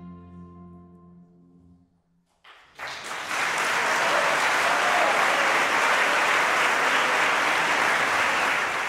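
The ensemble's last chord on harpsichord and strings dies away over about two seconds. After a brief silence, audience applause starts about two and a half seconds in and continues steadily.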